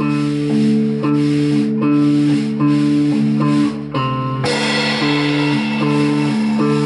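Live rock band of two electric guitars, electric bass and drum kit playing a repeating guitar riff. About four and a half seconds in, after a brief break in the pattern, the band comes in fuller and brighter.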